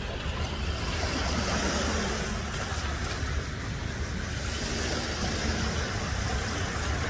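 Steady seaside ambience: a continuous low rumble with a hiss over it, and no distinct gull calls.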